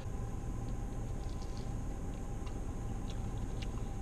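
Quiet chewing of a crispy fried cheese-and-potato tot, with a few faint scattered clicks and crunches, over a steady low hum inside a car.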